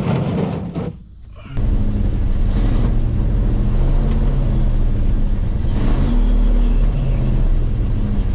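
1982 Ford F-150 pickup engine starting about a second and a half in, then running at a steady idle. This is the first run after a power steering pump replacement, turning the pump to draw fresh fluid through and bleed air out of the system.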